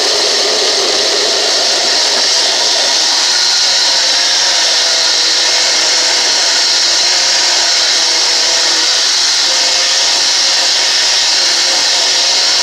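Countertop blender motor running steadily and loudly, puréeing tomatillos, cilantro and water into a green salsa.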